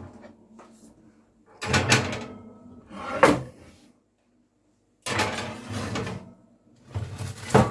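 A heavy metal skillet being set and slid onto an oven's wire rack, with the oven door and racks handled: a series of short metallic clanks and scrapes, the sharpest about three seconds in and near the end, broken by a second of silence partway through.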